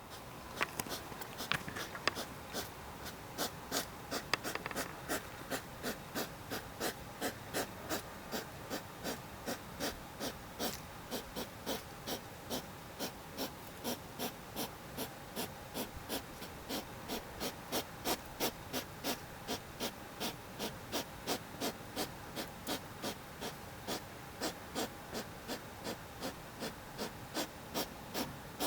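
Hedgehog breathing in short, regular, wheezy huffs, like a cough or panting, about two a second.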